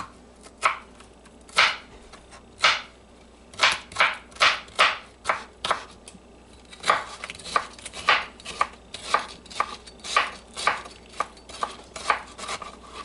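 Kitchen knife chopping bell pepper on a wooden cutting board: sharp knocks of the blade striking the board, about one a second at first, then quicker, two to three a second, from about seven seconds in.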